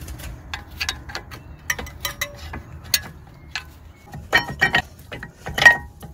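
BMW E90 front brake caliper being worked off the pads and disc by hand: a string of irregular metal clicks and taps, turning into louder clinks with a short metallic ring over the last two seconds, the loudest about five and a half seconds in.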